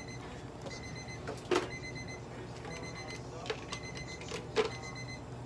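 An electronic device beeping: short, high beeps repeating about once a second. A few sharp knocks cut in, the loudest about one and a half seconds in.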